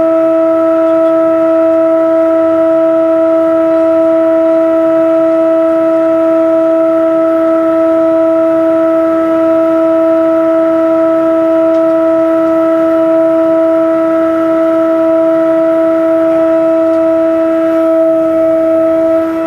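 Ship's deck crane machinery running, heard from inside its cab as it lowers a container: a loud, steady whine held at one pitch, without a break.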